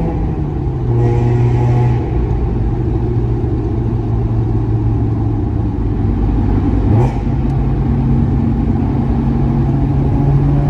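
Mazda RX-8's two-rotor rotary engine with an R-magic tuned silencer and aftermarket exhaust, running at steady revs with tunnel echo. The revs dip slightly near the start, rise in one brief quick blip about seven seconds in, and climb a little near the end.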